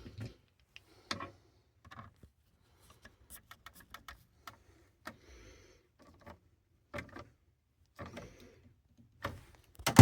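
Scattered light clicks and rustles of hands working wire connectors on a heating control board, checking that a loose wire is now seated tight, with a louder knock right at the end.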